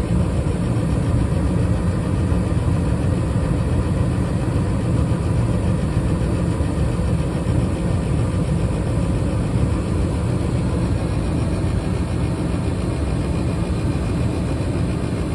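Bryant gas furnace running with its burners lit: a steady low rumble of combustion and fan noise, unchanging throughout.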